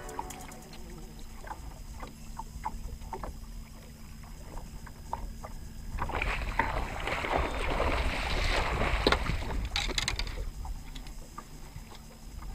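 Hooked musky thrashing at the surface beside the boat: a loud burst of water splashing for about four seconds, starting about six seconds in. Before it there are scattered small clicks and splashes over a low steady rumble.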